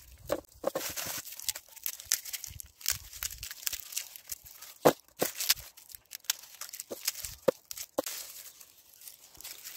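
Garlic heads being broken apart into cloves by hand: the dry papery skins crackle and rustle, with irregular sharp snaps as cloves come away.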